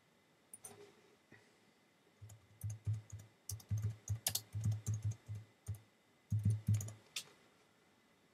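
Typing on a computer keyboard: a quick run of keystrokes starting about two seconds in and stopping about a second before the end.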